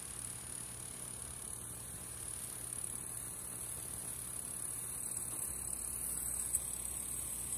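Steady high-pitched insect chorus over the low, steady hum of a Kubota tractor's diesel engine working its blade through loose soil. The engine hum grows a little stronger about five and a half seconds in.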